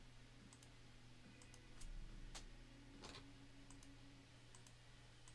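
Near silence with a few faint, scattered clicks from a computer being worked, over a low steady room hum.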